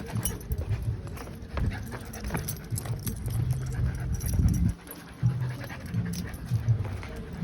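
A puppy panting, with footsteps.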